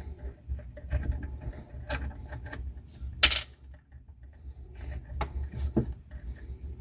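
Scattered light clicks and handling noises from hands working on the disposal's wiring under a sink, with the sharpest click about three seconds in.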